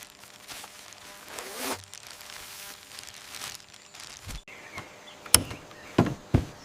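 Soft rustling and shuffling handling noises, then three sharp knocks in the last second and a half.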